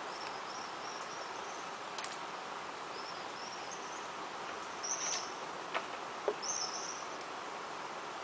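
Outdoor natural ambience: a steady background hiss with several short runs of high chirps, the loudest about five and six and a half seconds in, plus a few faint clicks.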